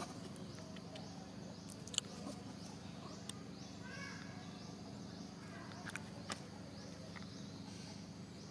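Outdoor ambience: a steady low hum with a few sharp clicks, and a short cluster of falling chirping calls about four seconds in.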